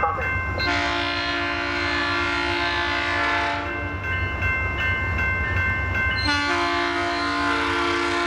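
Approaching train's multi-chime air horn sounding two long blasts, each a steady chord lasting about three seconds, the second starting about six seconds in. A low rumble runs underneath.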